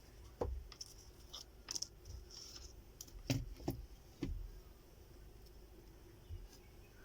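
Light clicks and knocks, about five of them within the first four and a half seconds, from a laptop motherboard being turned over and multimeter probes being placed on it.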